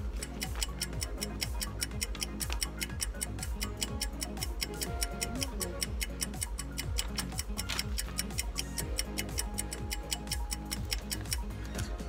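Background music with a fast, steady ticking beat.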